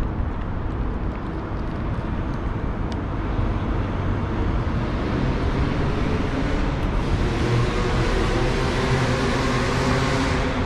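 Road traffic noise, steady and fairly loud, growing louder about three seconds in, with a vehicle engine's low drone coming up strongly over the last few seconds.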